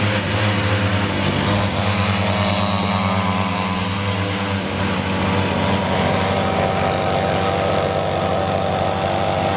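Two coupled two-stroke chainsaw engines running a homemade go-kart, a steady buzzing engine note that changes pitch about halfway through.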